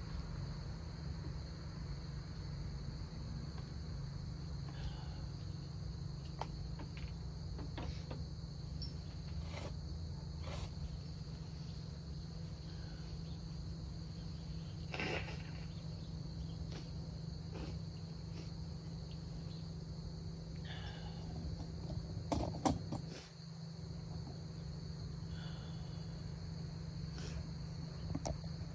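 Insects trilling steadily in a continuous high-pitched chorus over a low steady hum, with a few scattered faint clicks and knocks, a small cluster of them about two-thirds of the way through.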